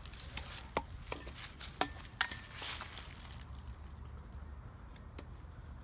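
Rustling and a handful of light clicks and knocks as freshly cut pieces of a branch are picked up and handled. The clicks cluster in the first three seconds, after which it goes quieter.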